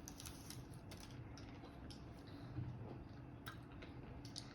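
Scattered faint clicks of hard caramel candies being sucked and knocking against teeth.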